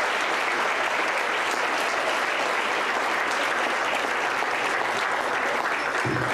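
A roomful of guests applauding, a dense and steady clapping.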